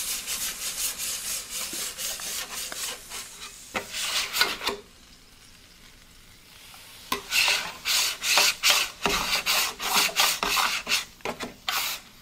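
A scraper rasping across the hot cast-iron top of a Vevor 22-inch flat-top griddle in quick repeated strokes, clearing off residue loosened by water. The strokes stop for about two seconds midway, then start again.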